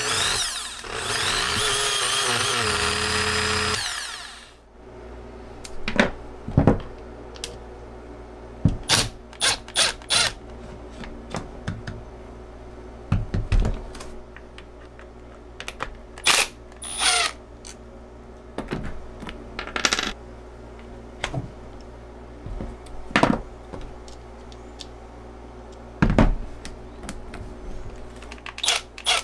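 Bosch GWS 9-125 S angle grinder running for about three and a half seconds, then stopping; its faulty armature is the source of its terrible noise. After that come many separate clicks and knocks of metal and plastic as the grinder's rear housing is taken apart.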